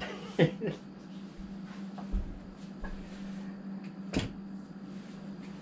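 Scattered knocks and clicks of things being handled: two sharp clicks about half a second in, a dull thump about two seconds in and another sharp knock near four seconds, over a steady low hum.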